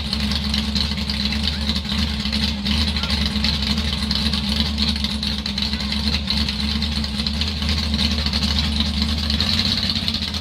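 Lifted mud truck's engine idling steadily as a low drone, the truck stopped and disabled in the pit; onlookers take the fault for a broken mount.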